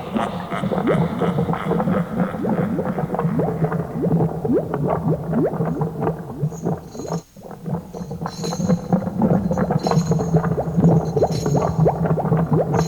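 Halloween sound-effects recording: a low steady drone with many quick bubbling pops over it, breaking off briefly about seven seconds in. After the break, high glassy clinking joins the bubbling.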